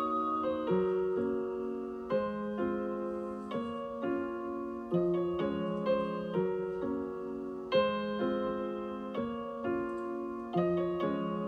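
Background piano music: notes and chords struck in a steady, unhurried rhythm, each fading before the next.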